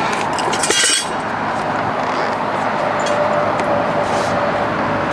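Metal hinge-kit parts clinking a few times in quick succession about a second in, over a steady rushing background noise.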